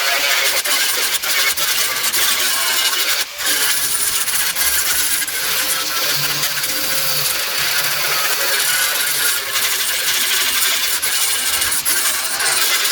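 Power tool working on metal car body panels, running steadily with a wavering high whine and scattered clicks and scrapes.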